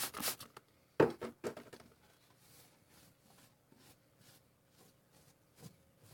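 Brief rubbing strokes, then a sharp knock about a second in and another shortly after, followed by faint scattered clicks of parts being handled.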